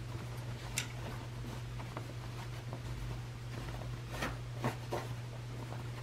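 Fabric rustling and brushing as a sewn baby bonnet is handled and turned right side out. There are a few sharper rustles about a second in and again between four and five seconds in, over a steady low hum.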